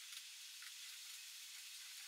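Faint, steady hiss close to silence, with no distinct events.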